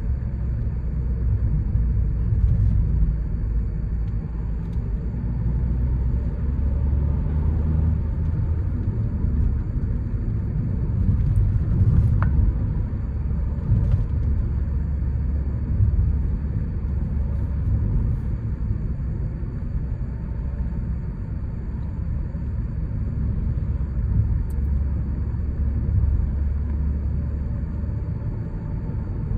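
Ford Courier's 1.5-litre, 100 hp diesel engine and tyres heard from inside the cabin while driving: a steady low rumble of engine and road noise.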